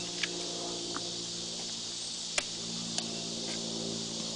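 Steady, high-pitched chorus of insects, with a low steady hum underneath and a few sharp clicks.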